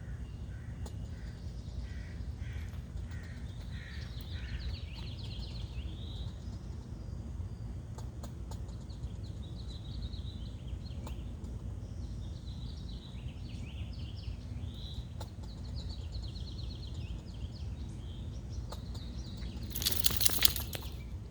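Squirrel chattering in alarm: bouts of rapid, repeated short high calls, over a steady low outdoor rumble. A brief loud rattle sounds near the end.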